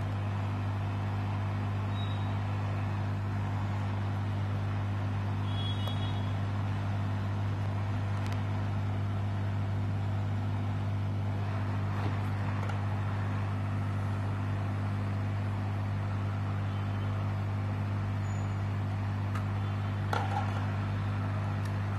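Hot air rework station handpiece blowing steadily over a laptop motherboard: an even rush of air over a low, steady hum, heating the solder to remove capacitors from the CPU core voltage regulator section.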